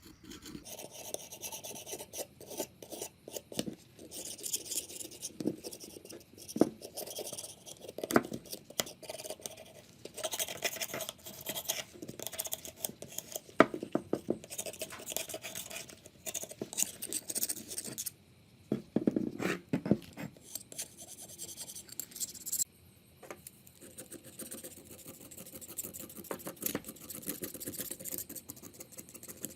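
Irregular hand scraping and rubbing strokes with scattered clicks and knocks, as of a part being worked over with hand tools.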